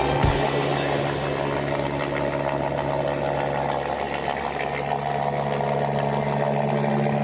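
AgustaWestland AW109 twin-turbine helicopter flying past, a steady engine and rotor drone with a few held tones.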